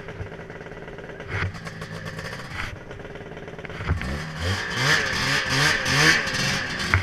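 Ski-Doo 583 snowmobile's two-stroke twin running steadily at low revs, then blipped up and down in about four quick revs about four seconds in. The engine is being revved to test a fresh carburettor adjustment.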